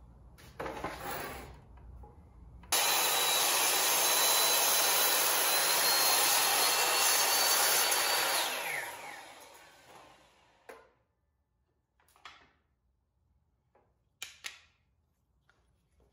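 Miter saw starting abruptly and running at full speed through a cut in a thick rough-sawn board, then switched off and winding down over about two seconds, its whine falling in pitch. A few short knocks follow near the end.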